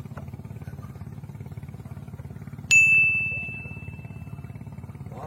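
A single sharp metallic ding about halfway through, its clear high tone ringing on and fading over about two seconds, over a steady low hum.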